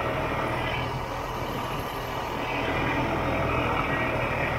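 Snowmobile engine running steadily, a low drone with a rushing hiss over it.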